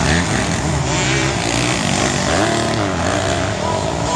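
Several motocross bikes' engines running hard at once, overlapping, each rising and falling in pitch as the riders rev up and back off.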